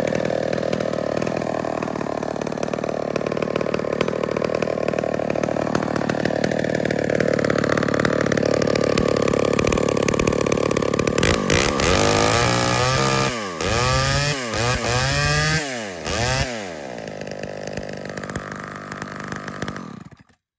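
Rebuilt two-stroke chainsaw running at a steady speed, then revved up and down four or five times in quick blips, then settling to a lower speed before the sound cuts off near the end. The owner says it isn't tuned quite right.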